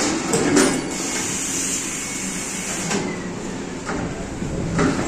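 Multi-colour footwear screen printing machine running: a steady whir with a high hiss, broken by a few short knocks and clacks, the loudest about half a second in.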